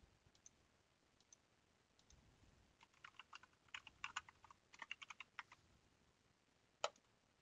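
Faint typing on a computer keyboard: a quick run of keystrokes through the middle, with a few scattered single clicks before it and one sharper click near the end.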